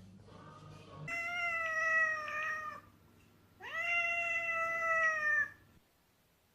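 Domestic cat meowing twice, two long drawn-out meows about a second apart, over a steady low hum.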